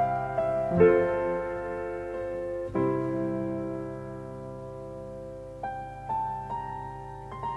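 Background piano music: slow sustained chords that change every few seconds, with single higher notes picked out toward the end.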